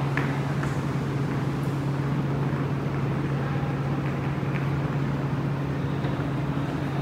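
Metro train running, a steady low hum over an even rushing noise that holds level without rising or falling.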